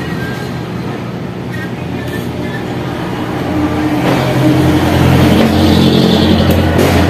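Motor vehicle engine rumbling steadily, growing louder a little past halfway through.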